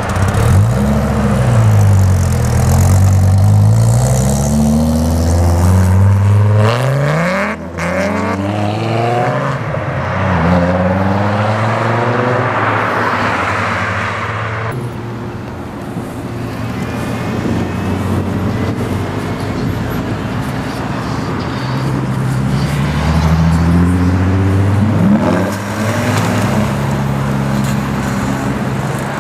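Dodge Viper RT/10's V10 accelerating hard away through several upshifts, its note climbing and dropping back with each gear change. The sound cuts off abruptly about halfway through. Later another car accelerates away, climbing through its gears.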